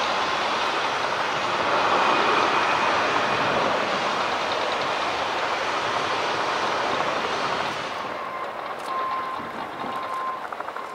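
Emirates Airbus A380 taxiing, its jet engines a loud, steady rushing noise with a faint whine. About eight seconds in this gives way to a quieter airliner on approach, a steady high whine that wavers.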